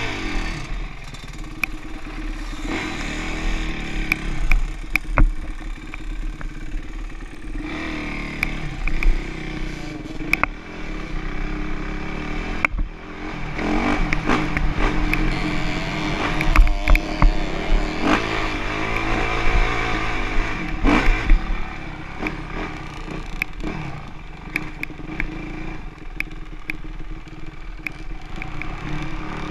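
Dirt bike engine being ridden, its revs rising and falling over and over, with clattering and many sharp clicks over rough ground.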